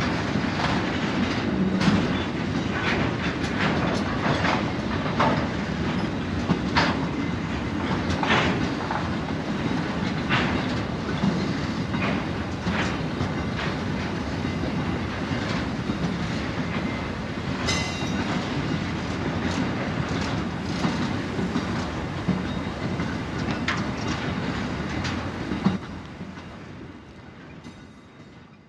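Narrow-gauge freight hopper wagons rolling past: a steady rumble with irregular clicks as the wheels cross rail joints, and a brief high metallic squeal about two-thirds of the way through. The sound dies away over the last few seconds.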